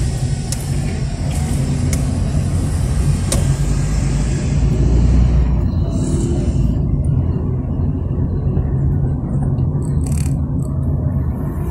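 Car driving in city traffic, heard from inside the cabin: a steady low engine and road rumble, with a higher hiss that fades out about halfway through and a few faint clicks.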